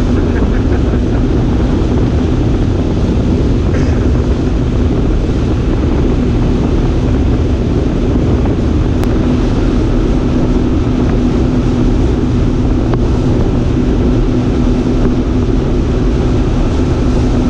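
A boat's 250-horsepower outboard motor running at speed, a steady drone with a constant hum, under wind buffeting on the microphone and the rush of water along the hull.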